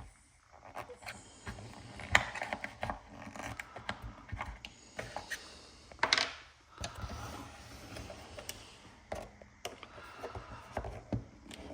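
Irregular clicks, knocks and scrapes of hand work on a car shifter assembly as its old bushings are pried out, with one louder scrape about six seconds in.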